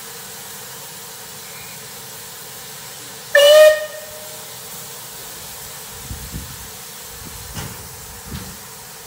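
Steam locomotive whistle giving one short blast of just over half a second, rising slightly in pitch as it opens, over a steady hiss of steam from the locomotive. A few low thumps follow in the second half.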